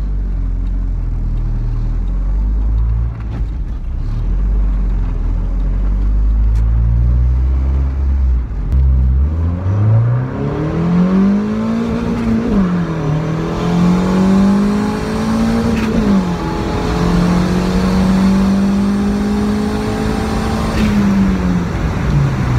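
Turbocharged Honda D16Y7 single-cam four-cylinder heard from inside the cabin during a hard acceleration pull. The engine rumbles low at first, then revs climb steeply, drop sharply twice at gear changes, hold high, and fall away as the throttle closes near the end.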